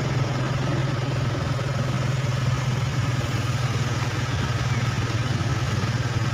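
A motorcycle engine running steadily, an even low drone with no change in speed.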